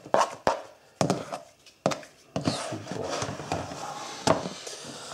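Chopped apple and tomato being scraped off a cutting board into a plastic mixing bowl, with several sharp knocks of the board against the bowl in the first two seconds. Then the bowl is shifted and set down on the board, with rubbing and another knock just past four seconds.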